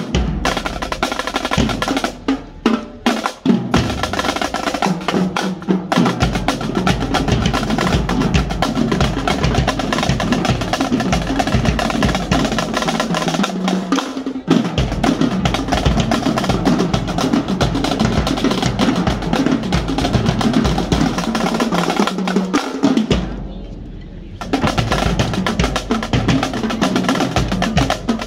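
Marching drumline playing a cadence on Pearl marching snare drums with tenor drums: separate accented strokes at first, then fast continuous sticking and rolls. Near the end the drums break off for about a second, then come back in together.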